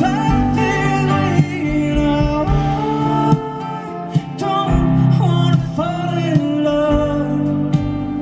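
Live acoustic music: acoustic guitar playing under a voice that sings a drawn-out, wordless melody which glides between notes.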